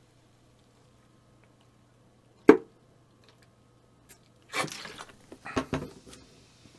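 A person drinking from a plastic soda bottle: one sharp, loud click about two and a half seconds in, then a run of short crackles and knocks from about four and a half seconds as the bottle is lowered and set down. A faint steady hum lies underneath.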